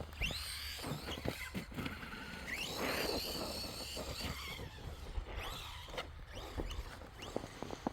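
Electric motor of an RC truck whining up and falling back in repeated bursts of throttle, about five times, as it is driven through snow, with short knocks in between.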